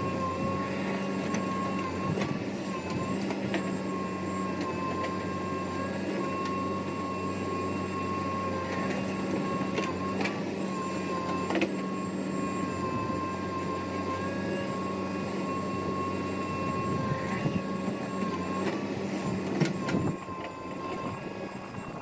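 A heavy diesel machine running steadily, with a constant high whine over the engine note and a few sharp knocks. The level drops about twenty seconds in.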